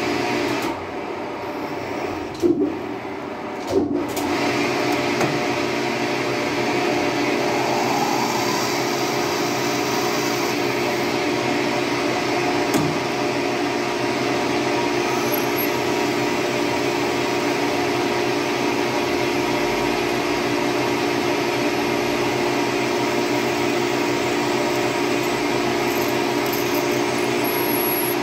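Turret lathe running steadily with a hum that holds several fixed tones while a twist drill bores into a spinning brass nipple blank. Two short knocks come about two and a half and four seconds in.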